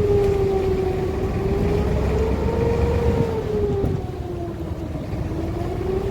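Sampan's motor running under way: a low rumble with a steady whine that slowly rises and falls in pitch, dipping slightly in level about two-thirds of the way through.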